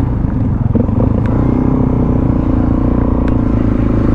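Suzuki DR-Z400 supermoto's single-cylinder four-stroke engine running at a low, steady speed, with low wind and road rumble on the helmet microphone. There is a brief lull in the first second.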